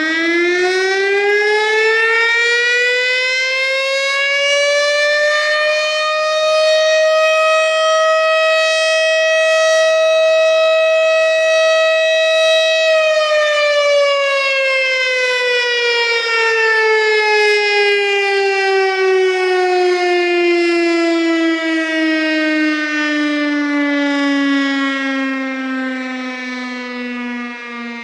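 Federal Signal STH-10A single-tone outdoor warning siren sounding a short alert test: the tone climbs through the end of its windup, holds steady at full pitch for several seconds, then winds down from about halfway through, falling in pitch as the rotor slows.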